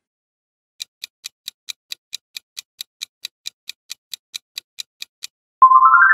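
Quiz countdown-timer sound effect: clock-like ticking, about four to five ticks a second for some four and a half seconds. Near the end, a louder, bright chime of quick stepped notes rising in pitch signals that time is up and the answer is revealed.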